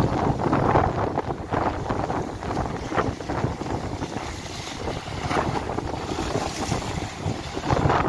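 Rough sea waves crashing and splashing against a concrete seawall, with strong wind buffeting the microphone. Several surges of splashing, the biggest near the end as a wave bursts over the quay edge.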